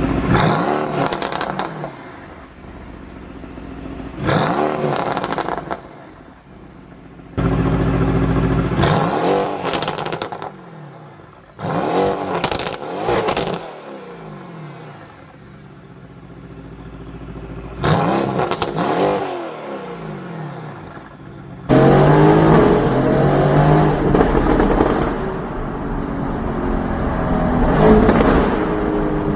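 Mercedes-AMG GT R twin-turbo V8 through an Fi valved aftermarket exhaust, blipped five times. Each rev rises and falls, with pops and crackles as it drops off. Near the end the exhaust sounds louder and more continuous.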